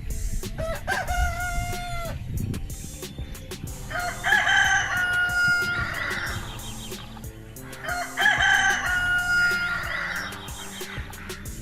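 Rooster crowing three times: a short crow about a second in, then two long cock-a-doodle-doo crows about four and eight seconds in. Background music plays underneath.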